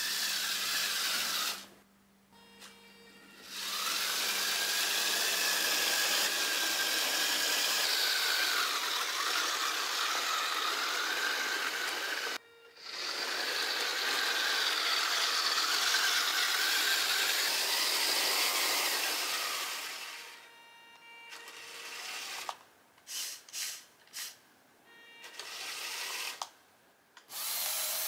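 Lego Technic electric motors whining through their gear trains as they drive the train lift, the pitch wavering with the load. They stop briefly about two seconds in and again around twelve seconds in, then run in several short starts and stops near the end.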